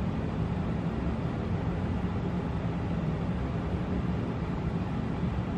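Steady low droning room noise with no distinct events.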